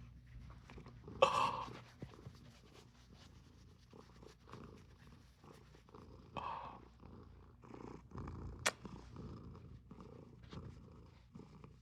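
Domestic cat purring close to the microphone, a steady low rumble, with a few brief louder noises about a second in and midway through.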